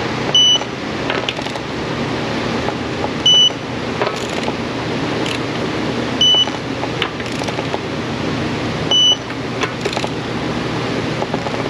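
A short electronic beep repeats about every three seconds, four times, over a steady car engine idle.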